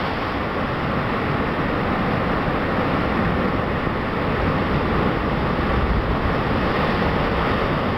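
Seawater surging and churning white through a narrow rock-walled channel: a steady rushing noise with a heavy low rumble.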